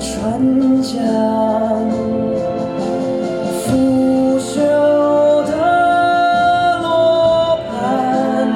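Mandarin pop ballad playing, with long held sung notes over the backing instruments and no clear words.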